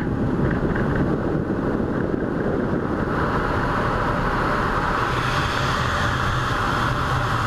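Wind rushing over the camera microphone during a freefall off a cliff, a steady noise that grows stronger and hissier about three seconds in as the fall picks up speed.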